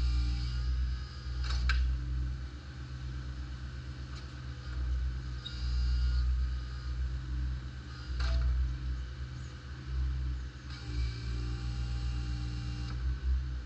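Takeuchi TB216 mini excavator's diesel engine running steadily, its loudness swelling and dipping as the machine works. Two brief sharp knocks come about two seconds and eight seconds in.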